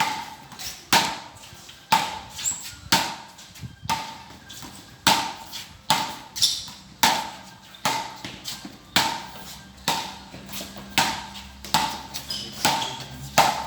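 A road tennis rally: a ball with its felt stripped is struck back and forth by wooden paddles and bounces on the road, giving sharp knocks at a steady pace of about one every half second to a second.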